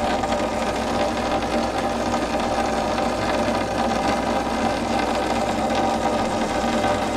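Pipe-thawing machine's motor running steadily, an even buzzing hum, while it works on a frozen water pipe as the ice gives way and water starts coming up.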